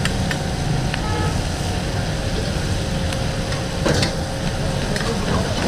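Steady rumbling background noise of a busy street-food stall, with scattered sharp clicks and a louder knock about four seconds in.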